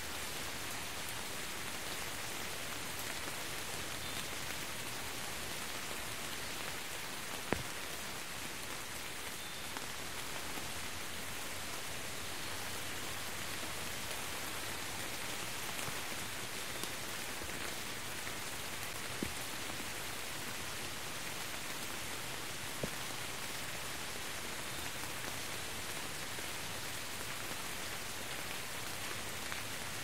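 Steady rain falling and pattering on a wet surface, with a few sharper single drop hits standing out, the loudest about seven and a half seconds in.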